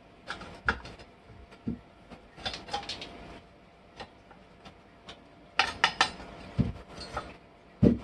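Metal parts of an antique Westinghouse table fan motor clinking and knocking together as the housing is handled and fitted. The knocks are irregular and come in small clusters, with the loudest single knock near the end.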